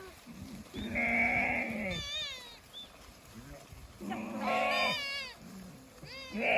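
Sheep bleating, three calls a couple of seconds apart, each with a wavering, quavering pitch.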